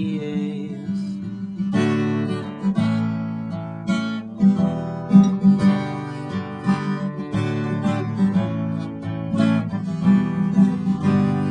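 Acoustic guitar strummed in chords, an instrumental passage between sung verses.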